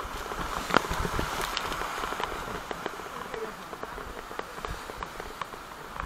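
Whitewater of a big river rapid rushing and crashing around an inflatable raft, with many sharp splashes and knocks; a loud splash about a second in.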